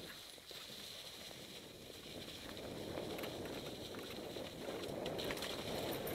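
Mountain bike tyres rolling over dry fallen leaves, a dense crackling rustle with small knocks and rattles from the bike jolting over the ground. It grows louder in the second half.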